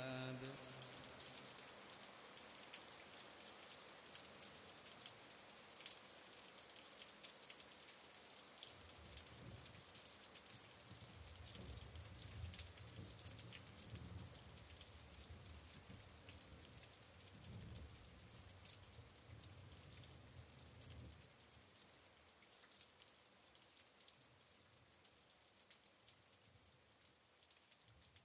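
Rain falling: a faint, steady patter of many small drops, slowly fading away toward the end, with a low rumble underneath for several seconds in the middle.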